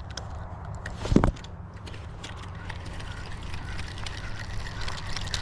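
An approaching boat's motor running steadily, a low rumble that slowly grows louder, with one sharp knock about a second in.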